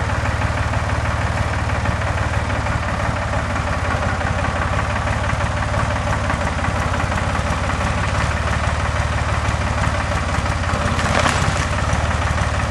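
Farm tractor engine running steadily while pulling on a rotten tree with a chain. Near the end there is a sharp crack.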